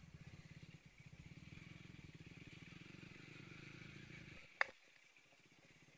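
Motorcycle engine running at low revs, a faint, even low pulsing as the bike rolls slowly. About four and a half seconds in there is a short click and the sound cuts off.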